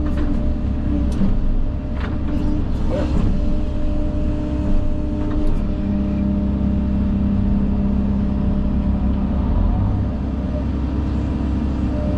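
Engine of an earthmoving machine running steadily with a low hum. A few sharp knocks and clanks come in the first half.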